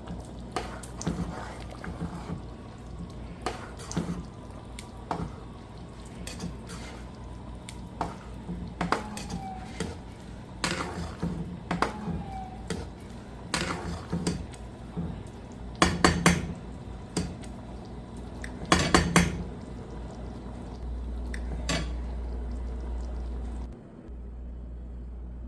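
Kitchen utensils clinking against pots and dishes: a string of sharp clinks and knocks, with two louder clattering clusters about two thirds of the way through. A steady low hum takes over near the end.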